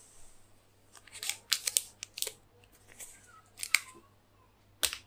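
Plastic shrink-wrap on a MacBook Air box crackling as hands grip and rub along it: a quick run of sharp crinkly crackles about a second in, a few more past the middle, and one last sharp crack near the end.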